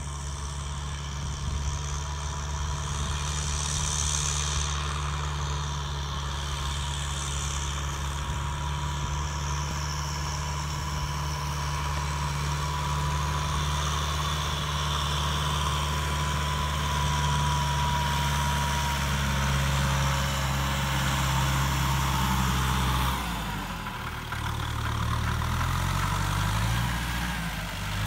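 Kubota M6240 tractor's four-cylinder diesel engine running steadily under load while it pulls a disc plough through field soil. Near the end the engine note drops and then climbs back up.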